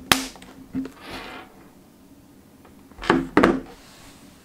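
Latches of a hard plastic travel humidor case being snapped shut: a sharp plastic click near the start, a brief scrape about a second in, then two loud clicks close together about three seconds in as the case is set down.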